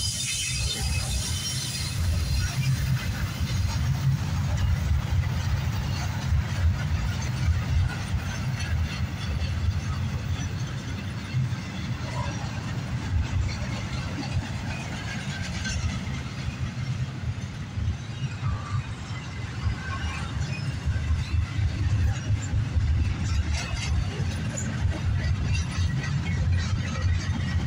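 Double-stack intermodal well cars rolling past on steel wheels: a steady low rumble on the rails, with scattered clicks and brief faint squeals from the wheels.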